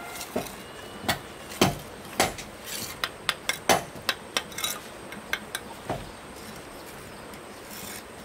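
A string of irregular sharp knocks and clinks, about fifteen over five seconds, the loudest in the first four seconds, dying away after about six seconds.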